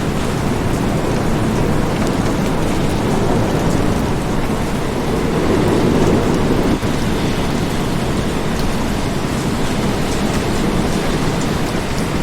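Steady rain, with a low thunder rumble building from about three seconds in and cutting off abruptly about seven seconds in.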